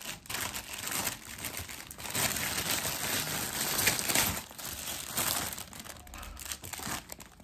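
A clear plastic bag crinkling and rustling as it is handled and pulled off a black plastic car cup holder, loudest in the middle and tailing off near the end.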